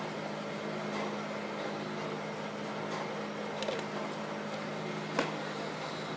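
Steady low machine hum, with a few faint ticks and one sharp click about five seconds in.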